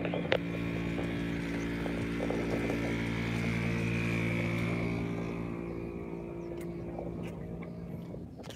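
PZL W-3 Sokol helicopter flying past, its rotor and twin turboshaft engines a steady drone with a high turbine whine. It grows loudest about four seconds in, then fades as it moves away.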